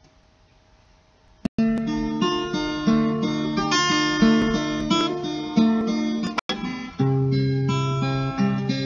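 Acoustic guitar finger-picked, a slow intro that comes in about a second and a half in, with a momentary dropout a little past the middle.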